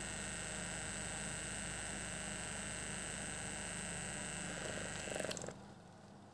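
StylPro Squeeze makeup-sponge cleaner's motor running through a cleaning cycle with a steady buzzing hum, then a short clatter and it cuts off about five and a half seconds in.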